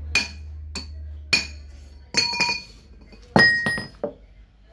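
Metal-on-metal strikes with a bright ringing clink, three about half a second apart, from a steel pipe and hammer at a bench vise while trying to free a LiFePO4 cell from its aluminium casing. Then a louder ringing clatter in the second half as the steel pipe and hammers are set down on concrete.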